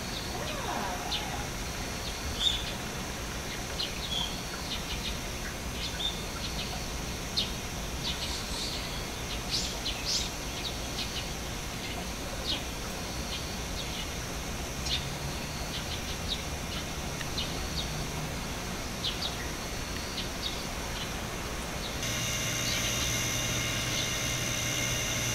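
Small birds chirping in many short, scattered calls over steady outdoor background noise. Near the end, a steadier hum with several fixed tones comes in.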